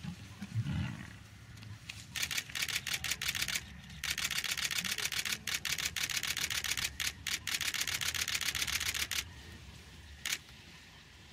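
A short low animal call about half a second in from the lion and buffalo fight, then a camera shutter firing in rapid continuous bursts for about seven seconds, ending with a few single clicks.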